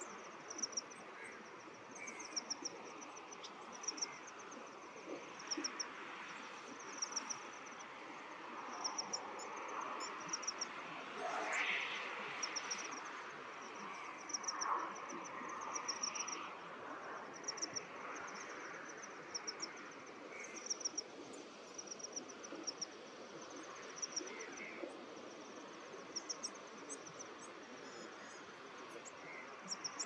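Insects chirping in short, high-pitched pulsed bursts that repeat about once a second, over a steady faint background hiss.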